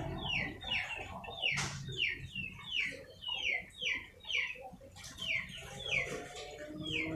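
Chicken peeping over and over: short, high calls that fall in pitch, about two a second, with a brief noise about a second and a half in.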